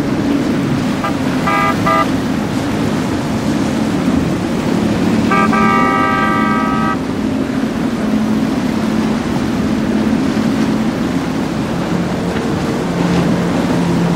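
A horn sounds twice over the steady drone of boat engines and rushing water: a short toot about a second in, then a longer blast of about a second and a half around five seconds in.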